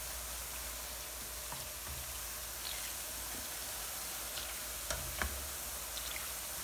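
Boondi (drops of gram-flour batter) deep-frying in hot ghee, giving a steady sizzle as a plastic spatula stirs them round the pan. There are a couple of light knocks about five seconds in.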